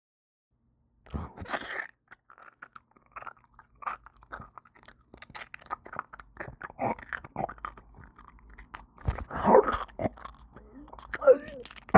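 A gore sound effect: irregular crunching and wet chewing and biting noises. It starts about a second in and is louder twice near the end.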